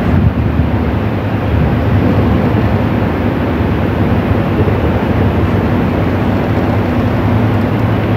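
Steady low rumble with a hiss above it and a faint low hum, unchanging throughout.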